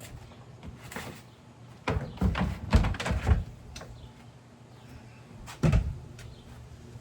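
Patio furniture knocking and thumping on the deck as it is moved: a cluster of knocks about two seconds in and one more thump near the end.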